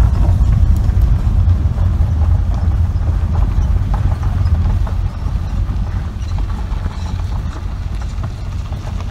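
Car rolling over a loose gravel quarry floor, heard from inside the cabin: a steady low rumble of tyres and engine, with a scattered crackle of stones under the tyres. It gets a little quieter after about five seconds.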